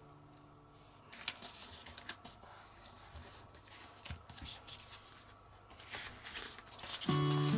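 A sheet of brown paper being folded and creased by hand: scattered crackles and rustles of paper. Background music fades out about a second in and comes back, louder, near the end.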